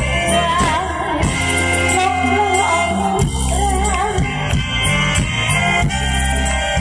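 Live Isan luk thung stage-band music coming through a concert PA, with a steady bass beat under a wavering lead melody.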